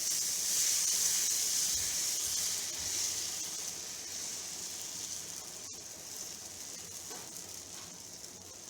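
Ada dosa batter sizzling as it is ladled onto a hot, oiled dosa griddle. The sizzle starts loud as the batter hits and slowly dies down over the next several seconds.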